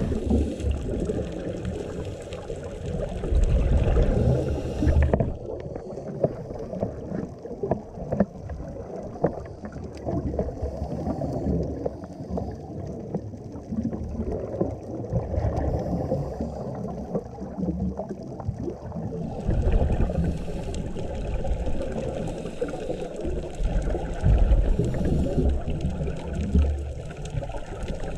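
Muffled underwater sound of scuba divers breathing through their regulators: exhaled bubbles gurgling and rumbling in waves. Louder for the first few seconds and again through the last third.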